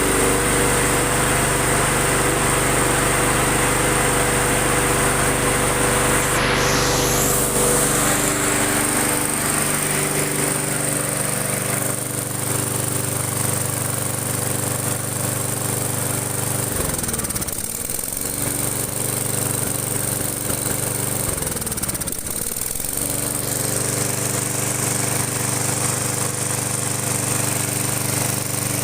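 Small petrol lawn mower engine running steadily after being fired up with a drill. Twice, about two thirds of the way through, its speed sags briefly and picks back up.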